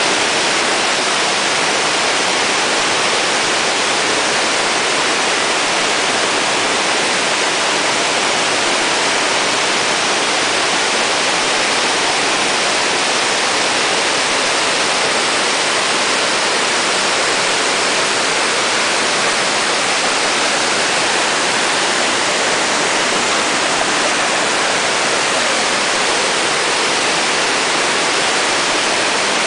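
Loud, steady rush of flowing creek water, an unbroken hiss with no let-up.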